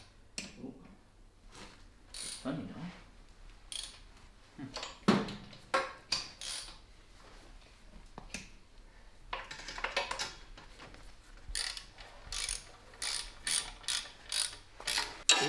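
Ratchet wrench clicking in short runs as the exhaust pipe bolts are done up, with scattered knocks and clinks of tools and metal. The clicks come faster and more regularly in the last few seconds.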